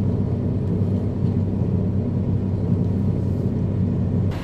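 Semi-truck diesel engine idling steadily, a low rumble heard from inside the cab.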